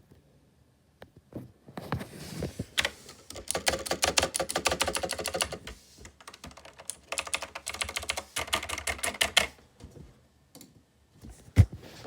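Two bursts of rapid, dense clicking, each lasting two to three seconds, with a single thump near the end.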